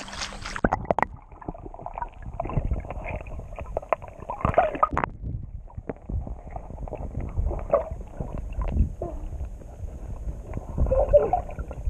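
Muffled underwater noise from a swimmer in a pool, heard with the microphone submerged: a splash as it goes under about half a second in, then low rumbling, bubbles and scattered clicks from water movement.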